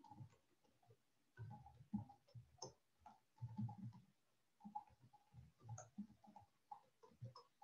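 Faint computer keyboard keystrokes: irregular clicking in short runs with brief pauses while figures are typed.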